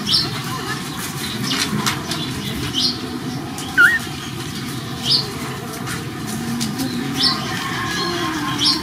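Short high-pitched animal squeaks, about five in all, spaced roughly two seconds apart, with one louder twisting cry about four seconds in.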